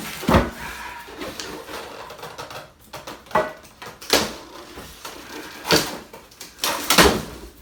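Packaging of a boxed replica sword being handled and opened: a handful of sharp knocks and thuds among rustling.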